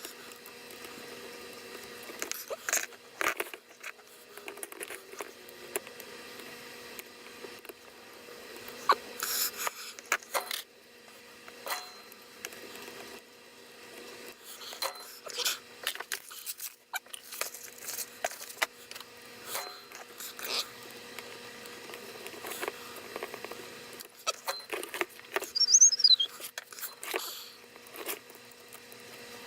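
Irregular small clicks, taps and scrapes of hand tools working on a power-supply circuit board while capacitors are desoldered and replaced, over a faint steady hum. A brief high falling squeak comes near the end.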